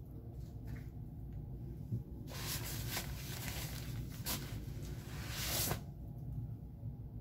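Diaper being handled and set down, its outer cover rustling and crinkling for about three and a half seconds, starting about two seconds in, with a few sharp crackles.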